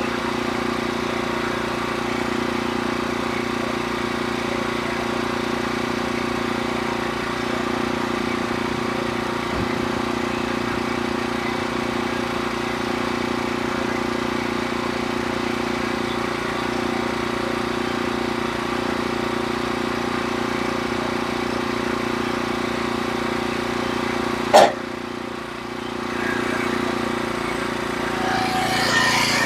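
Norwood HD36V2 portable sawmill's engine running steadily. A single sharp knock comes near the end, the sound drops briefly, then a rougher, noisier sound builds up.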